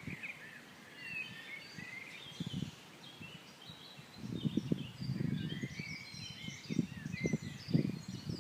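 Several birds chirping and singing in quick, short notes, with irregular low rumbling bursts starting about four seconds in.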